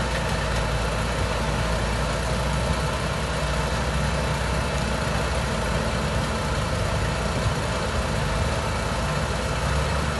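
Powerscreen Chieftain 2200 mobile screening plant running while it screens sand: a steady diesel engine and machinery din that does not change.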